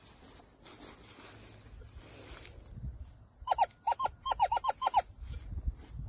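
A bird calling a quick series of about ten short notes, each falling in pitch, starting about three and a half seconds in.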